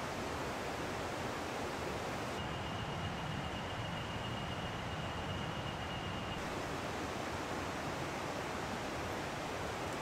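A steady, even rushing noise with no distinct events. For about four seconds in the middle the hiss is duller, and a faint high steady tone sits within it.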